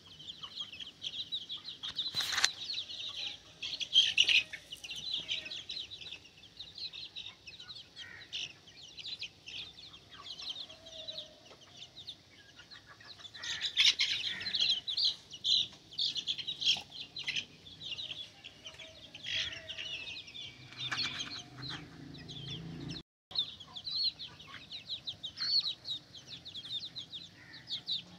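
A flock of young Ayam Cemani chicks peeping continuously, with many rapid high-pitched peeps overlapping, and a sharp knock about two seconds in.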